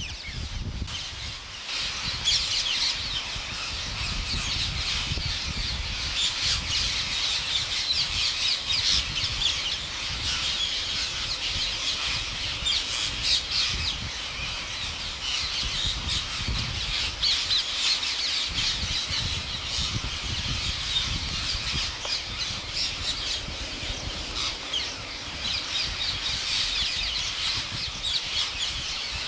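Green parrot squawking and chattering in a dense, continuous stream of short, shrill calls, over a low rumble.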